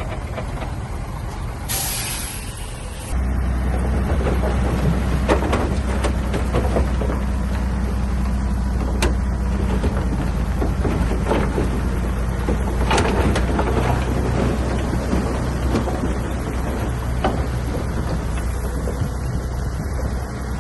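A short hiss of air about two seconds in, then a heavy diesel engine stepping up to a loud, steady run under load, with scattered knocks and clatter.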